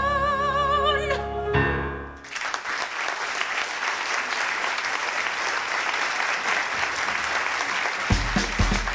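A woman's held final sung note with vibrato ends about a second in, followed by a short closing chord, then an audience breaks into steady applause. A low beat starts under the applause near the end.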